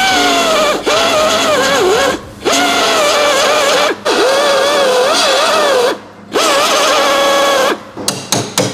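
Power tool working through the spot welds of a car's sheet-metal body panel. It runs in bursts of one to two seconds with short breaks, and its whine dips in pitch each time it bites into the metal. A few sharp knocks follow near the end.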